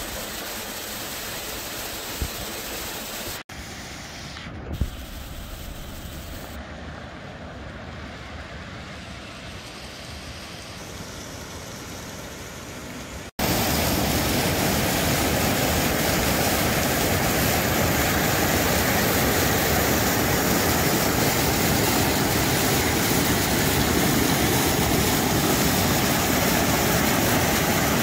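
Waterfall and cascading creek water rushing in a steady, even roar. It is softer at first, then suddenly much louder and fuller about halfway through, close to a rocky cascade.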